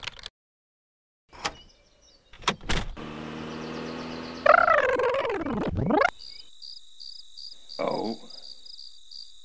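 Animation sound effects: a few sharp clicks, then a car engine passing whose pitch swoops and drops away about six seconds in, followed by crickets chirping in a fast steady rhythm of about five chirps a second.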